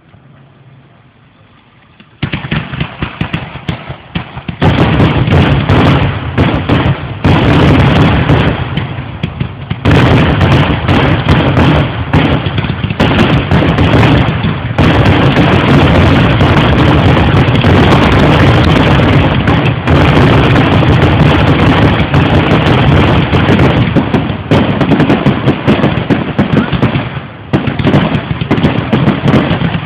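Fireworks display: after about two seconds of quiet, a very loud, dense barrage of rapid bangs and crackling starts and keeps going with hardly a break.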